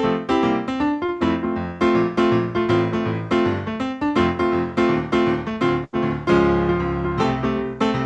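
Solo piano playing a postlude, a lively run of notes with a brief break about six seconds in, after which a chord is held.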